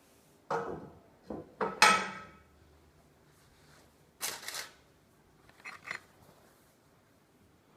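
Kitchen cookware and utensils clattering. A run of knocks and clanks comes in the first two seconds, the loudest ringing briefly. A noisier clatter follows about four seconds in, then a few lighter knocks near six seconds.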